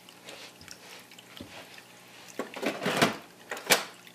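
Hard plastic parts of a Hoover WindTunnel bagless upright being handled, likely its dirt cup: light taps, then a scraping rattle about two and a half seconds in, and a sharp click near the end.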